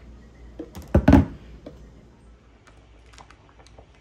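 Two loud knocks close together about a second in, then light scattered clicks and taps.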